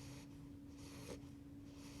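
Eight-week-old beagle puppy snoring softly in his sleep: quick, hissy breaths about once a second, over a steady faint hum.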